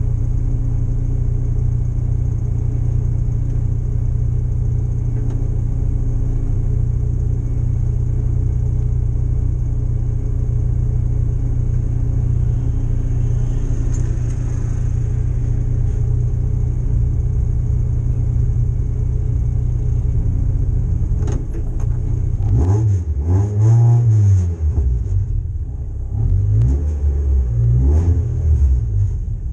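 Spec MX-5 race car's four-cylinder engine idling steadily, heard from inside the stripped cabin. For the last several seconds the revs rise and fall several times.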